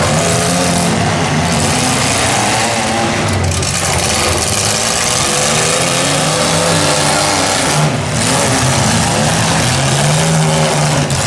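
Several demolition derby compact cars' engines running loudly and revving up and down, the pitch rising and falling as the cars move around the dirt arena.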